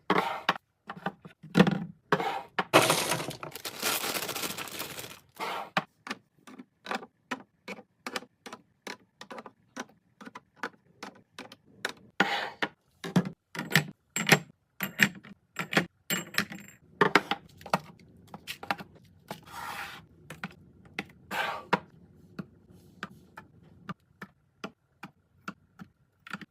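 Groceries and containers being handled and set down while restocking a fridge: many small clicks, taps and knocks of plastic and glass, with a longer rustling, crinkling noise about three to five seconds in.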